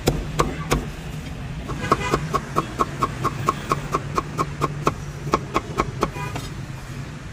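Meat cleaver chopping on a thick wooden chopping block: three heavy chops through roast duck near the start, then a fast run of about five chops a second through cucumber, each with a short ringing clack.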